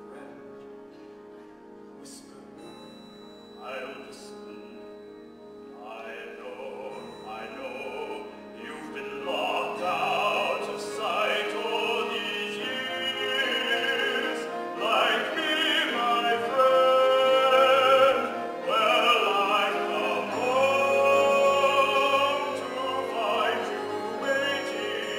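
A singer performs a slow musical-theatre song over soft instrumental accompaniment, with wavering vibrato on the held notes. It starts quietly and swells much louder about ten seconds in.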